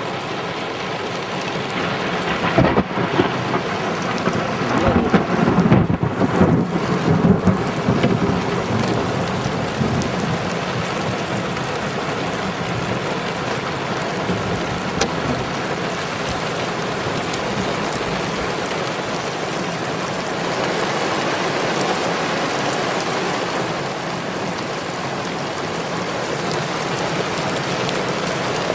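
Rainstorm beating on a vehicle, heard from inside the cabin: a steady rush of rain and wind, louder and heavier for several seconds from about three seconds in.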